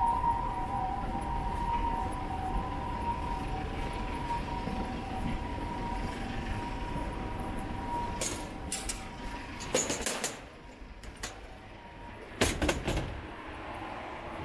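An emergency vehicle's two-tone siren, fading out about two-thirds of the way through, over street noise. A few short sharp knocks follow near the end.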